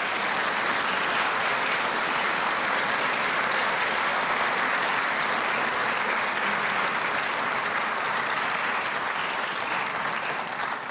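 Audience applauding steadily in a large, reverberant hall, dying away at the very end.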